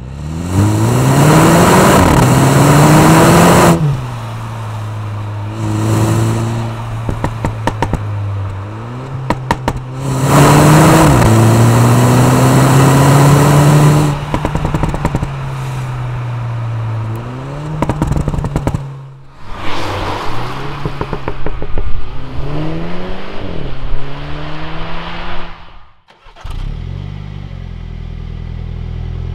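2016 Mini Clubman Cooper S's turbocharged four-cylinder engine revved several times, each rev rising in pitch and falling back to a steady idle. Sharp pops and crackles come from the exhaust as the revs drop off.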